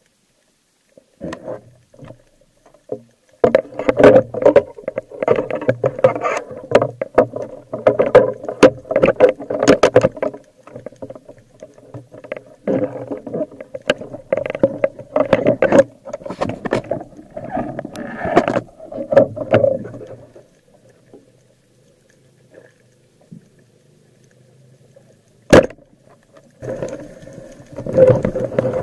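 Underwater handling noise picked up by a camera on a wooden roller speargun: irregular water rushing with knocks and clicks as the diver moves and works the gun's bands, easing off for a few seconds before one sharp crack near the end.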